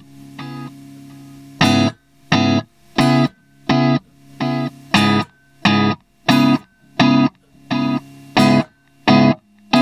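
Electric guitar played through a Keeley Halo Core delay pedal: short, clipped chord stabs about every 0.7 s, some weaker than others, after a quieter chord held for the first second or so.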